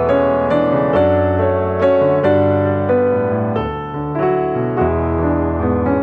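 Background piano music: gentle notes and chords struck at an unhurried, even pace.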